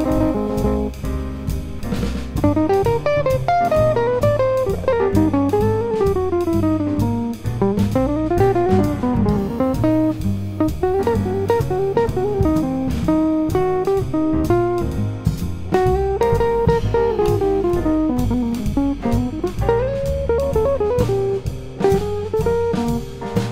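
Jazz guitar solo on an acoustic-bodied guitar: fast single-note runs that climb and fall, over double bass and drums keeping a swing groove.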